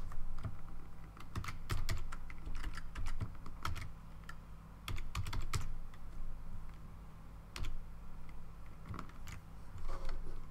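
Typing on a computer keyboard: irregular keystrokes in short bursts with pauses, over a faint steady low hum.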